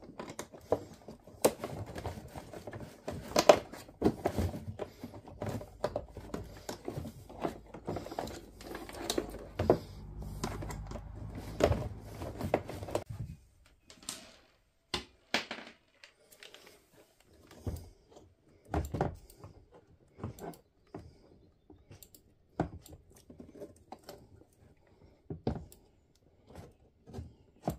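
Clicks, knocks and rattles of small electrical parts being handled and fitted into a plastic ride-on toy quad's battery compartment. They come thick and fast for the first half, then as scattered single knocks.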